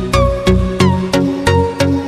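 Background electronic music with a steady beat, about three strikes a second, over a deep bass line.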